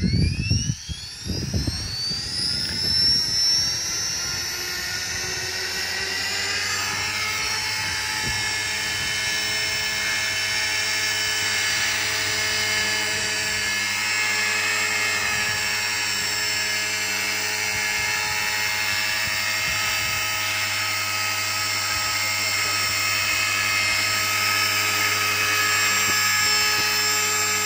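Electric RC helicopter (Align T-Rex 450 in a Lama scale fuselage) spooling up. The motor and rotor whine rises in pitch over the first six seconds or so, then holds as a steady high whine with the rotor at speed. There are a few low thumps in the first two seconds.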